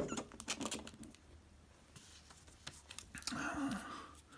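Hard plastic graded-card slabs being handled: a burst of sharp clicks and taps as one slab is set into its stand, then a few more as the next is picked up. A short hummed sound about three and a half seconds in.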